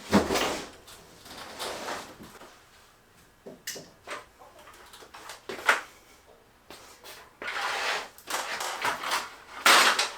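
Things being handled and moved about in a garage: a loud knock at the start, scattered knocks and clatter, then a longer stretch of scraping and sliding near the end.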